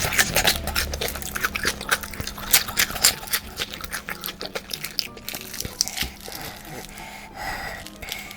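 Crisp crunching and chewing of fried garlic chicken: a rapid run of sharp crunches that thins out after about five seconds into softer chewing.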